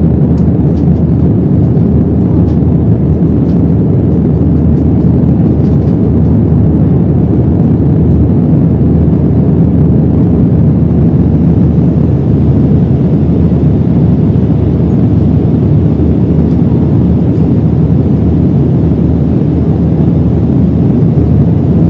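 Steady jet airliner cabin noise heard from inside the passenger cabin: an even, deep rush that holds unchanged throughout.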